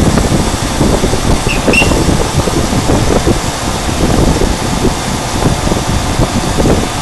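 CNC machine running, its cutter machining an acrylic plate: a steady mechanical noise, with two short high chirps about a second and a half in.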